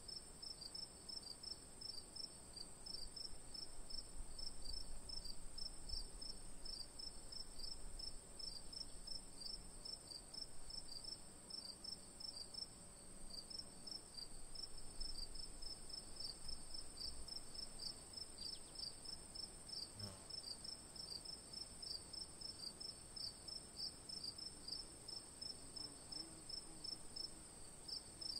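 A faint night-time insect chorus: a steady high-pitched trill with quick, regular chirps, several a second.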